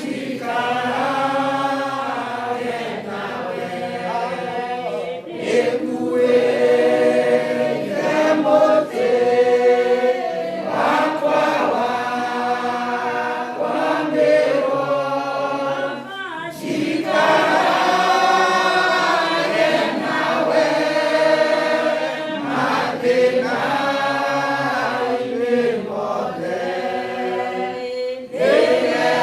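A congregation singing together in chorus, many voices holding long notes.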